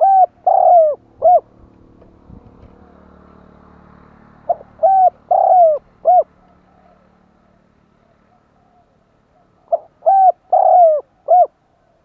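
Caged spotted dove cooing: three phrases about five seconds apart. Each phrase has four notes, and the third note is the longest and falls in pitch. This is the decoy call used to draw wild spotted doves in.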